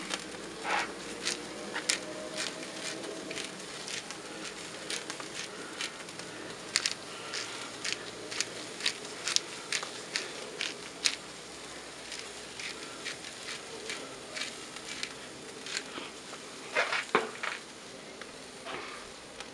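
Beef burger patties searing over hot charcoal on a kettle grill: a steady soft sizzle with scattered sharp crackles and pops, a few quick clusters of them a third to halfway through.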